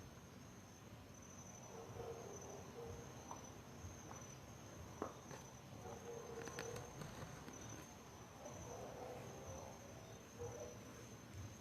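Faint, steady high-pitched insect trill, slightly pulsing, with a single sharp click about five seconds in.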